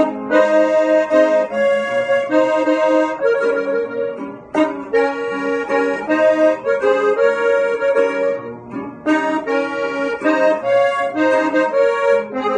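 Gabbanelli button accordion playing an instrumental norteño melody in phrases, with a guitar strumming beneath.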